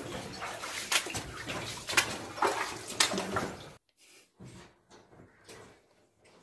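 Feet wading and splashing through shallow flood water in a mine adit, about one step a second. The sound cuts off suddenly a little before four seconds in, leaving only a few faint splashes.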